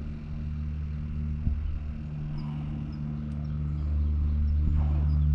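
A steady low mechanical hum with a few faint, short high chirps above it.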